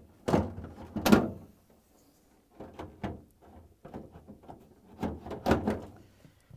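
A plastic refrigerator freezer basket being set down and seated onto its metal drawer slide rails: a series of plastic knocks and rattles, the loudest about a second in and again near the end.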